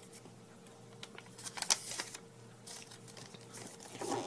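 A sheet of origami paper rustling and crinkling as hands handle and press it flat, in short crisp rustles, the loudest cluster about a second and a half in.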